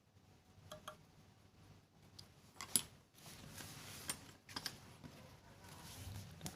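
Light metallic clicks and taps from sewing machine parts and tools being handled during repair, a handful of separate clicks with the sharpest about three seconds in, over a soft rustle of handling.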